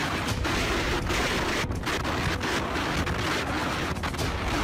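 Strong typhoon wind blowing in gusts and buffeting the microphone, a loud, dense rush of noise with brief dips between gusts.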